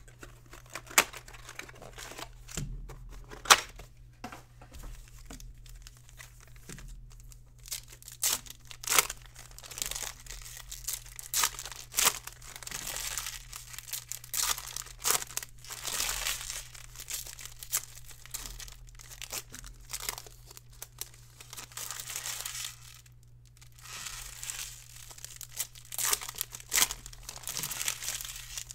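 Foil trading-card pack wrappers being torn open and crumpled by hand, making irregular crinkles, rips and sharp clicks, over a steady low hum.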